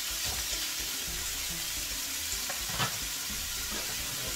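Leftover rice, still partly frozen, sizzling in hot oil and onions in a wok, a steady hiss. A utensil knocks or scrapes against the pan now and then, once more sharply about three seconds in.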